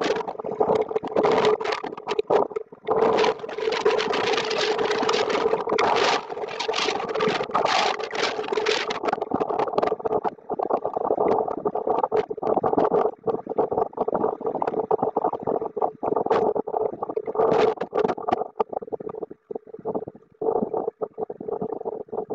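Storm wind and rain on an outdoor webcam's microphone, sped up sixteen times, heard as a steady hum under rapid crackling. The crackling is dense at first, thins out about halfway through, and turns duller near the end as the storm eases.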